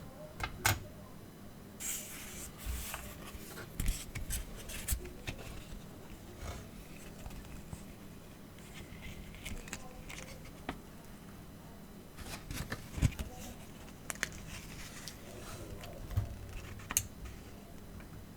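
Close-up hand handling of packaging while unboxing a keyboard: irregular snips, clicks and rustles, with a few sharper knocks.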